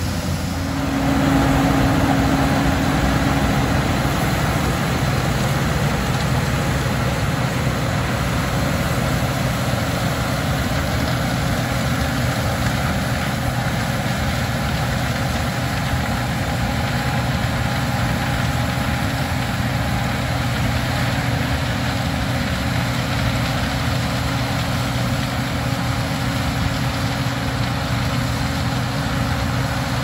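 Case IH 2388 combine running steadily at working speed, its engine and harvesting machinery a constant low drone that is a little louder for the first few seconds.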